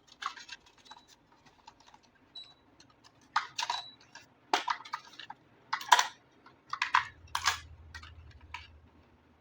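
Irregular sharp clicks and taps of hard plastic being handled, as with a toy RC vehicle and its packaging being unboxed. A faint low hum comes in about seven seconds in.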